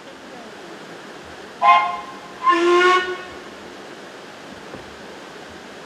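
Steam locomotive whistle sounding two blasts, a short one and then a longer one, over a steady background hiss.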